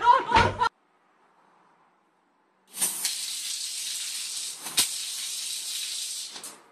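A strong jet of water from a wall-mounted washbasin tap, shooting past the basin and hissing steadily onto a tiled floor. There is one sharp click about halfway through, and the hiss cuts off shortly before the end.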